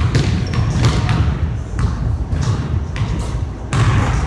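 A basketball bouncing on a gym's hardwood floor: several irregular thuds that echo in the large hall, over a steady low rumble.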